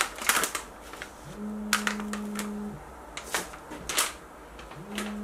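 Scattered sharp clicks and taps of a spice tin and kitchen things being handled, with a low steady buzz that comes twice, each lasting about a second and a half.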